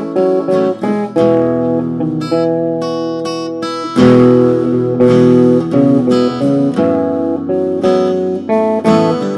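Guitar soloing: picked single notes and chords that ring on. A run of high ringing notes comes about two seconds in, then a loud chord is struck about four seconds in.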